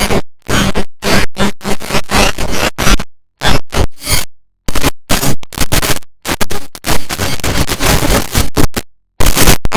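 Loud, harsh noise-like sound effects edited together, cutting on and off abruptly with brief dead-silent gaps between the bursts.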